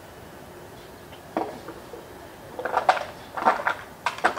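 Several clusters of clattering knocks and clinks over a steady background hiss, starting about a second and a half in and loudest in the second half.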